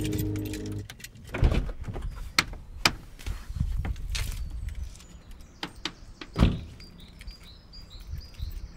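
A low music drone cuts off about a second in. Then come the separate clicks and knocks of a car door being opened and someone getting out, and a car door shuts with a heavy thud past the middle. Birds chirp faintly in the second half.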